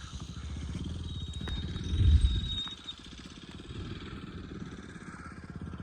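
A motor vehicle engine running, loudest about two seconds in.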